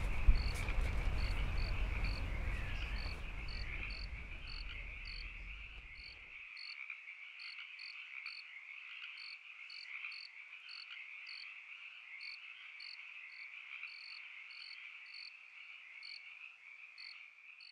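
Night chorus of frogs and insects: a steady high trill with short chirps repeating about twice a second, fading slowly. A low rumble underneath stops abruptly about six seconds in.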